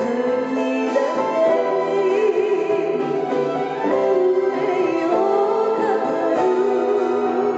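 A woman singing a Japanese song into a microphone over instrumental accompaniment, her voice holding long, wavering notes.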